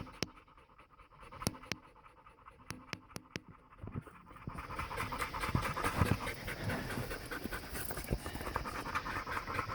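Several dogs panting hard after a long hike. A few sharp clicks sound in the first four seconds, then the group's rapid panting fills in from about four seconds in and grows louder.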